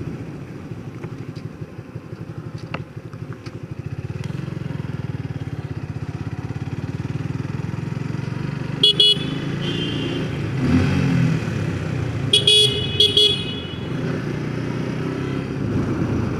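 Motorcycle engine running steadily while riding. A vehicle horn gives a short honk about nine seconds in, then several quick honks around twelve to thirteen seconds in.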